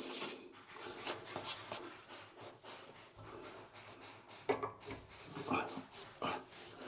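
Irregular rubbing and scraping from hand work on a pipe fitting being threaded on by hand, with a few louder scrapes about four and a half and five and a half seconds in.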